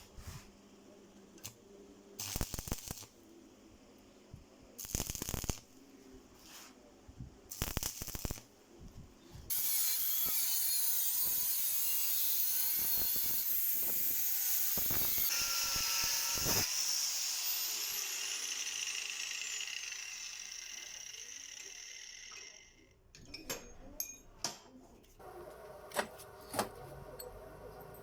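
A power tool run in three short bursts, then held on for about seven seconds with a high-pitched whine. After that its motor winds down with a falling pitch. Light clicks and knocks of metal follow near the end.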